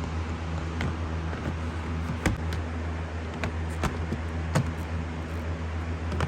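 Several sharp plastic clicks and knocks as an interior trim cover is pressed back into place and its tabs snap in, over a steady low hum.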